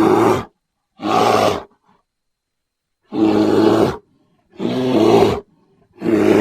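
Cave bear roar sound effect: a series of five short, rough, growling bear roars, each about half a second to a second long, separated by brief silences.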